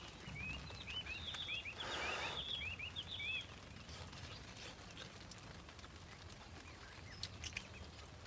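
A small bird chirping a rapid string of short, high calls for about three seconds, with a brief breathy rush of noise about two seconds in. Faint scattered ticks follow.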